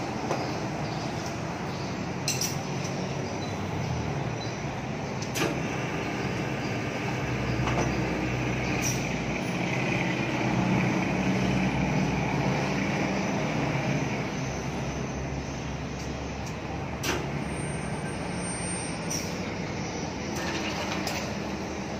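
Truck wheel balancer spinning a bus tyre and wheel during a balancing run: a steady mechanical rumble that swells about six seconds in and eases off again after about fourteen seconds. A few sharp clicks sound through it.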